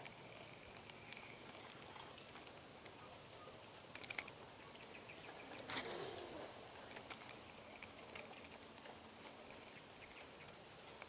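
Faint outdoor ambience with a steady thin high hiss, broken by a few soft clicks about four seconds in and a brief rustle about six seconds in.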